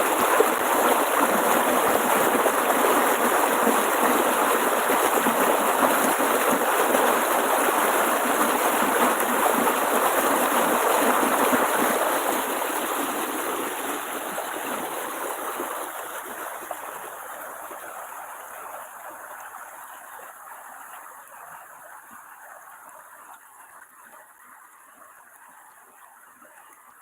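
Water rushing over a small weir, a steady noisy wash that fades gradually over the second half until it is faint.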